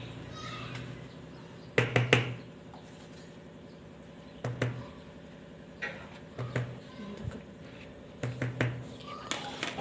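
A silicone spatula knocking and scraping against a plastic mixing bowl and a metal cake tin as chocolate cake batter is scraped out: sharp knocks in small clusters, loudest about two seconds in.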